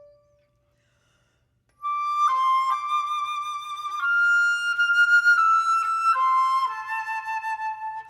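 Unaccompanied flute: a low held note fades away, and after a rest of about a second and a half a new phrase begins, with held notes stepping up and down every half second or so.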